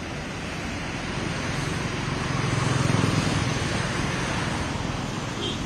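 Steady rushing noise of rain and traffic on a wet road, swelling about halfway through as a vehicle goes by.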